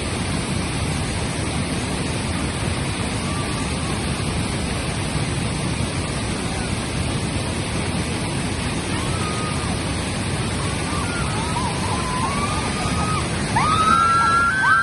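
Steady rush of a waterfall and river rapids. In the last few seconds, high-pitched shouts rise above the water.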